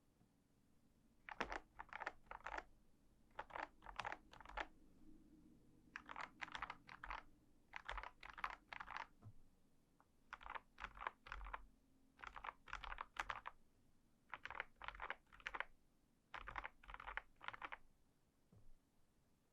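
KBD67 Lite R3 mechanical keyboard being typed on in about eight short bursts of several keystrokes each, with brief pauses between bursts and a single keystroke near the end.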